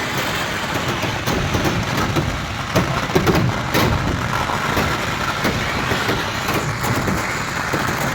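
Fireworks barrage: a steady rumbling roar thick with crackling pops and a few sharper cracks.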